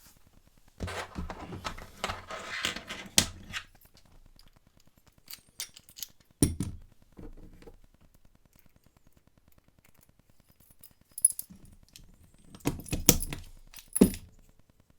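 Metal clicks and rattles of a padlock and small tools being handled: a rustling stretch near the start, then scattered sharp clicks, thickest near the end.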